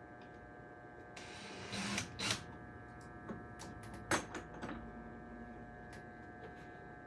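Handling noises from fitting door-closer hardware: a short scrape about a second in, then a few sharp clicks and knocks, the loudest a bit past halfway, over a steady low hum.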